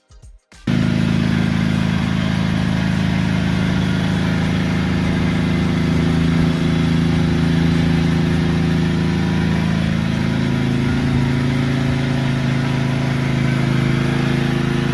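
A pressure washer's engine running steadily under load, with the hiss of the water jet spraying. It cuts in abruptly under a second in, and its pitch shifts slightly around ten seconds in.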